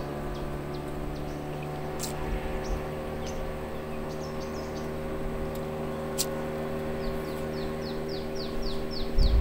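An engine running steadily with an even hum. Birds chirp now and then, and near the end a bird gives a quick run of falling notes, about four a second.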